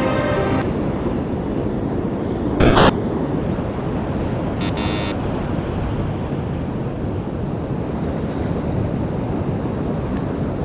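Surf washing on a sandy beach with wind buffeting the microphone, a steady rush throughout. A short loud burst comes about two and a half seconds in, and a shorter buzzy one near five seconds.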